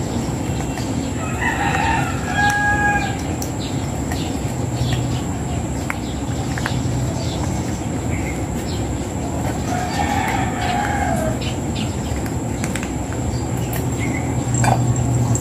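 A rooster crowing twice, once about a second and a half in and again about ten seconds in, each crow ending on a held note, over steady background noise with a few faint clicks.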